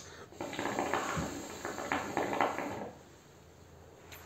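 Hookah being smoked: water bubbling in the base with breath through the hose, a fast irregular crackle that stops about three seconds in.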